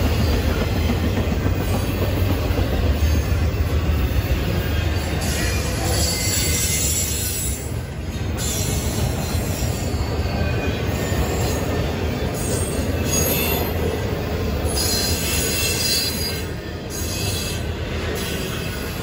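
Intermodal freight train rolling past: a steady rumble of steel wheels on the rails, with faint high-pitched tones coming and going.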